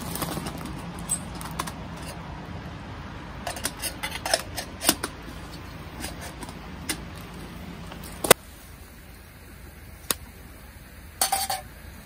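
Light metal clicks and clinks of a camping kettle's handle and lid being handled on a steel fire grill. A cluster comes in the middle, a sharp click a little after eight seconds, and one short ringing clink near the end. A low steady hum stops at the sharp click.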